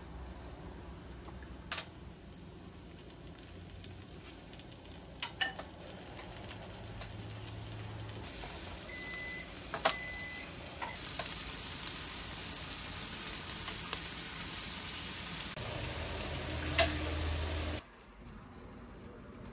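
Asparagus sizzling in hot oil in a nonstick frying pan while a wooden spatula turns it, with a few sharp taps of the spatula against the pan. The sizzle grows louder about eight seconds in and cuts off suddenly near the end.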